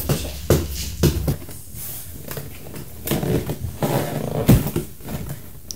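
A cardboard toy box with a plastic window being handled and opened on a table: rustling and scraping of cardboard and plastic, with a few sharp knocks.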